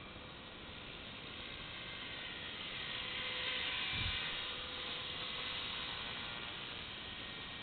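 Rotor and motor of a small electric RC helicopter (HobbyKing HK 250 GT) running with a hissing whoosh that swells as it hovers close, peaking about four seconds in with a brief low thump, then easing off as it sets down.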